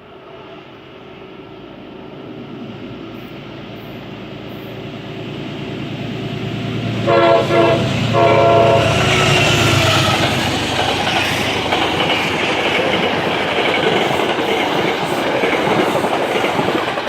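Metro-North Genesis locomotive approaching with a rising rumble, then sounding two loud chord blasts on its horn about seven seconds in, with a short break between them. The train then passes close by with loud wheel clatter and rumble.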